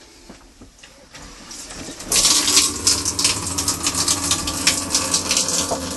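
Water rushing and splashing in a yacht's head, over the steady hum of an electric pump, starting about two seconds in.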